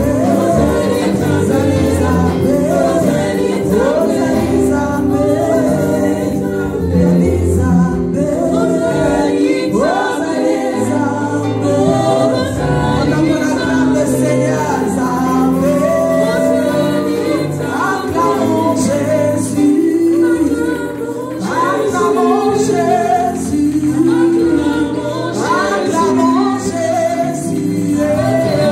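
Live gospel worship song: several women singing together into microphones, with a band's steady bass and accompaniment underneath.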